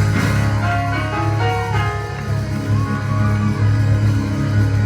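Praise music from a church band: held chords over a steady, unbroken bass note, with no speech over it.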